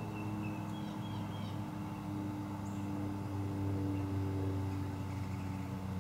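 A steady low motor hum, with a few faint high bird chirps in the first second and a half.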